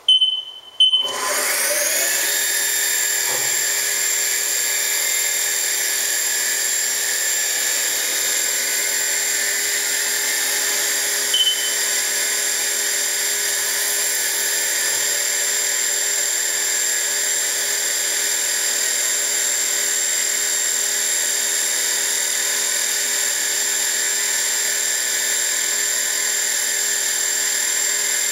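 Haas TM-1 toolroom mill's spindle spinning up about a second in with a rising whine, then running at a steady speed with a high, even whine. Short beeps from the machine's control come at the start and once more about eleven seconds in.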